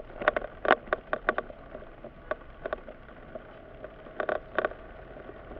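Inside a moving Mitsubishi SUV: a steady cabin hum with irregular sharp clicks and knocks, several a second at times, bunched near the start, a little before halfway and again about three-quarters through.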